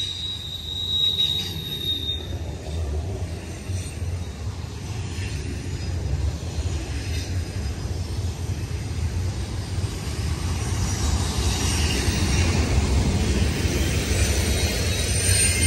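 Double-stack container freight train rolling past at close range: a steady rumble of wheels on rail, with a high wheel squeal that dies away about two seconds in. The rolling noise grows gradually louder toward the end.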